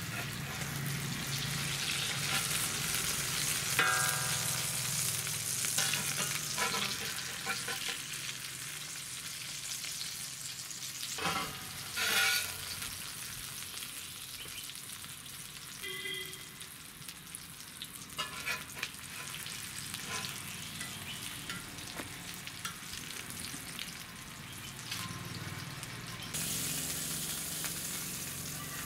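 Indian mackerel frying in shallow hot oil in an iron kadai: a steady sizzle. A metal spatula scrapes and clinks against the pan while lifting the fried fish out, with a couple of sharper knocks near the middle.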